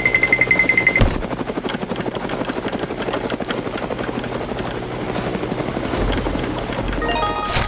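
Helicopter sound effect: a fast, steady rotor chop. A high beeping tone sounds over the first second.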